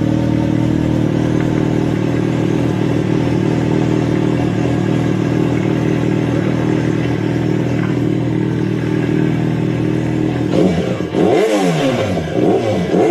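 Motorcycle engine idling steadily, then revved in several quick blips that rise and fall, starting about ten and a half seconds in.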